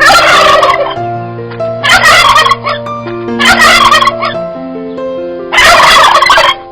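An animal calling four times in loud, harsh bursts about a second or so apart, over soft background piano music.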